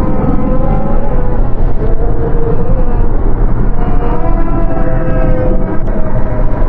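Dark ambient horror soundscape: a dense, steady low rumble with wavering, slowly gliding tones layered above it.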